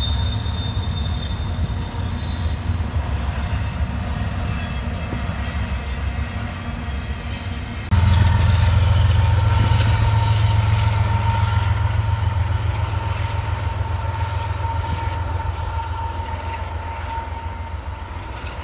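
A freight train rolling past with a steady low rumble of wheels on rail. About eight seconds in, it turns suddenly louder as the trailing Union Pacific AC45CCTE locomotive comes by, its diesel drone carrying a steady whine. The sound then slowly fades as the train pulls away.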